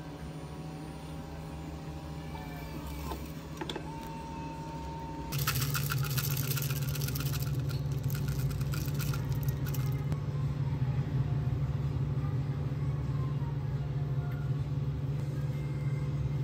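A small appliance motor starts about five seconds in. A clattering rattle over its first few seconds then smooths into a steady run that lasts until the end.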